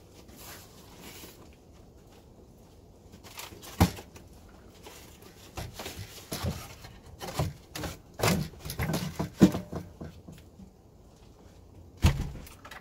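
Scattered knocks, thumps and rustling from someone moving about at the doorway of a wooden shelter, with a sharp knock about four seconds in, a busy stretch in the middle and another knock near the end.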